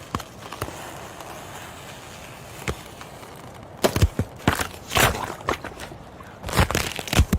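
Ice cracking and crunching: a few sharp single cracks at first, then rapid clusters of cracks from about four seconds in.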